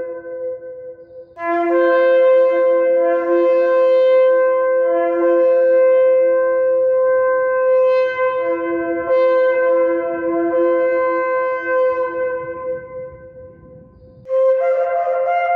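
Ram's-horn shofar blasts. One blast ends about a second in, then a long held blast of about eleven seconds fades away. In it a higher and a lower note sound together, the lower one coming and going. A new blast starts about a second before the end.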